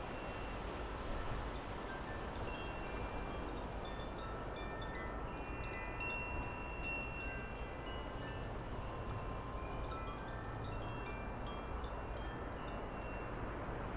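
Wind chimes ringing irregularly in a breeze, many overlapping clear tones, over a steady outdoor wind hiss.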